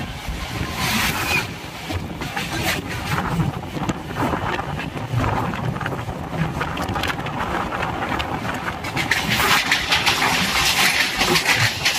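Express train hauled by a WAP-7 electric locomotive passing close alongside on the next track: a rush of air with rapid clatter of coach wheels over the rail joints, growing louder near the end. Wind buffets the microphone throughout.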